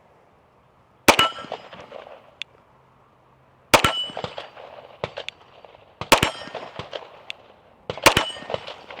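Four shots from a Staccato P 9mm pistol, roughly two and a half seconds apart. Each shot is followed a split second later by the clang of the bullet hitting a steel target, which rings briefly.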